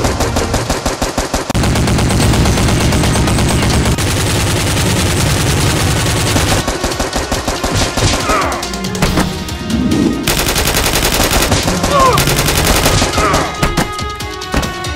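Rapid automatic gunfire sound effects: long runs of machine-gun shots, laid over the blaster fight in place of the toy blasters' own sound.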